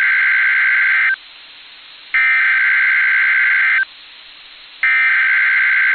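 NOAA Weather Radio EAS/SAME digital header: three harsh, buzzy data bursts of under two seconds each, about a second apart, announcing a Child Abduction Emergency (Amber Alert) broadcast.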